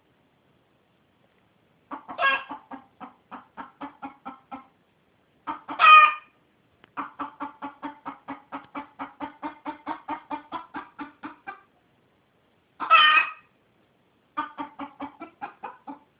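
Domestic chicken clucking in long runs of quick, even clucks, about four a second. The runs are broken three times by a loud, short, higher squawk.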